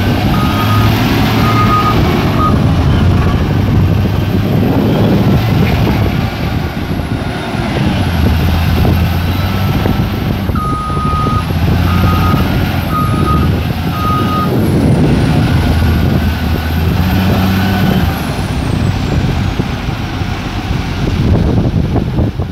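Caterpillar 966H wheel loader at work: its diesel engine runs loud, rising and falling as the loader moves and lifts. Its reversing alarm beeps in two runs, near the start and again about halfway through.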